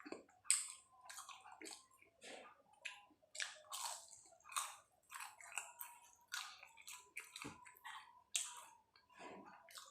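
Close-up chewing and mouth smacking of someone eating pisang keju, cheese-topped banana: short, irregular clicks, a couple or so per second.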